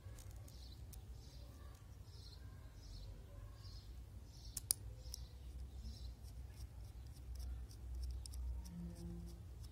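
Small metallic clicks and scrapes of coaxial F-connectors being pushed and screwed onto the ports of a metal 2-way TV splitter, with one sharp click about halfway through and a run of lighter clicks near the end. A high chirp repeats in the background about every three-quarters of a second over the first part, over a low rumble.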